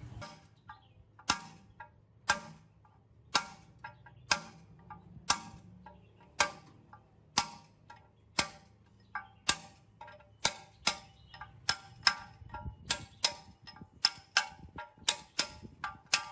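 Hammer striking metal in sharp, regular blows, each ringing briefly: about one blow a second at first, quickening to about two a second after some nine seconds.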